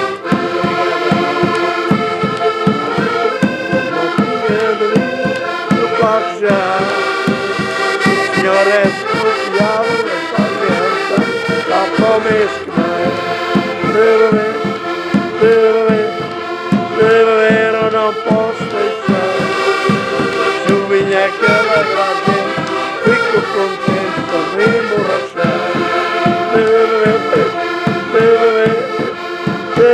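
Several diatonic button accordions (concertinas) playing a lively Portuguese folk tune together, over a steady bass-drum beat.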